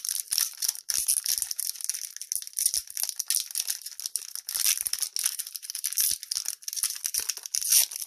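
Foil trading-card booster-pack wrapper crinkling and tearing as it is pulled open by hand: a continuous dense crackle.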